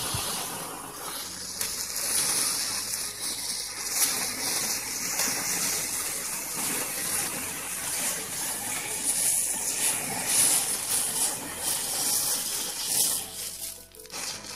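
A ball of matchsticks burning, the match heads catching one after another with a steady fizzing hiss and scattered crackles.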